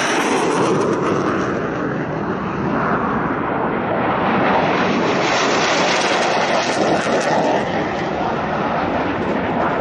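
Fighter jet engines heard during a low pass, a loud continuous rushing noise whose pitch shifts slowly as the aircraft passes.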